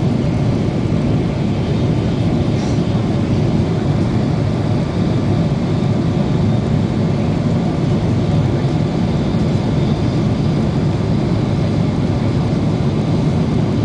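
Boeing 777 jet engines and airflow during takeoff: a steady low rumble that holds constant throughout.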